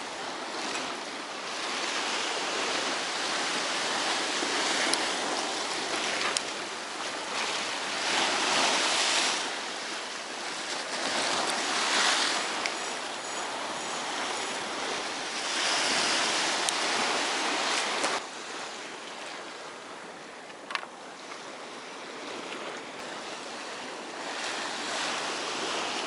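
Rough sea surf washing and breaking against the concrete blocks of a pier, swelling with each wave every few seconds and easing off a little after the middle. A single short click comes near the end.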